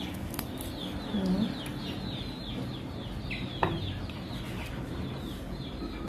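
Chickens in the background: a run of short, high, falling chirps throughout, with one low cluck about a second in. A single sharp knock comes just past halfway.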